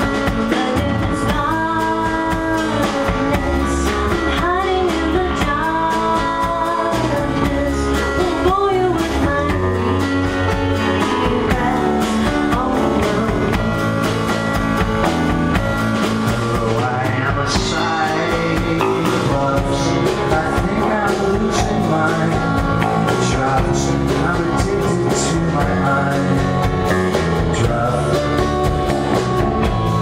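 Live rock band playing: piano, electric guitar and drum kit, with a voice singing over them.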